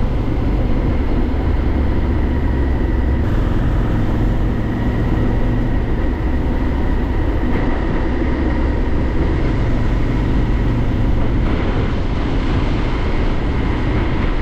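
Honda XL1000V Varadero's V-twin engine running steadily under way, mixed with a deep wind and road rumble.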